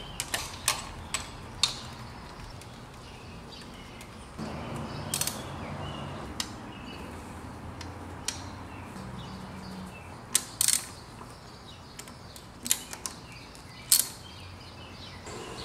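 Ratchet wrench with a 12 mm socket working the throttle body bolts: scattered sharp metal clicks and clinks, a few louder ones near the end.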